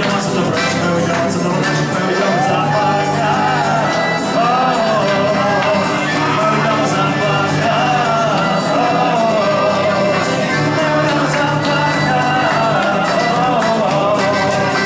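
Music from a pop-rock band: a steady bass and accompaniment under a lead melody that bends up and down, with some shouting or singing over it.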